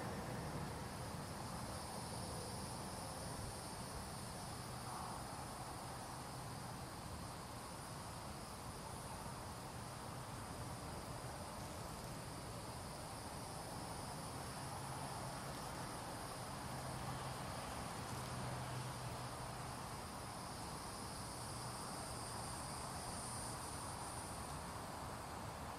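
Steady, high-pitched insect chirring outdoors, unbroken throughout, with a faint low hum underneath.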